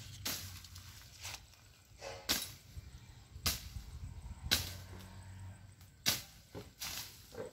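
Thick weeds being slashed by hand with a blade: sharp swishing strokes, roughly one a second, with several quicker strokes near the end.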